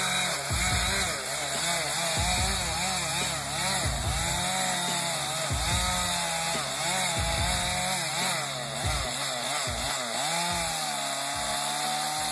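Chainsaw running and cutting wood, its engine pitch rising and falling as the chain bogs and frees in the cut. A low thump repeats about once a second underneath.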